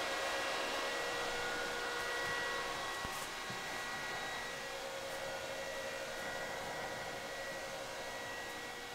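Bitmain Antminer S19J Pro ASIC bitcoin miner's high-speed cooling fans running with a steady high-pitched whine over a rushing hiss. The sound fades slowly as the distance grows.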